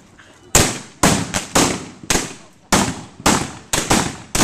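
Rapid, irregular exchange of black-powder revolver shots, about nine in all, each a sharp crack with a short echoing decay; the first comes about half a second in, and several fall in quick succession near the end.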